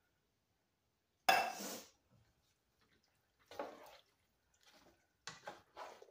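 A single loud clunk about a second in, then a spoon stirring wet, chunky canned tomatoes, beans and corn in a metal soup pot, with short scrapes and squelches at each stroke.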